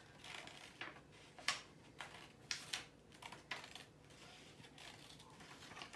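Small scissors snipping through a sheet of paper: a handful of quiet, sharp snips at uneven intervals, mostly in the first four seconds.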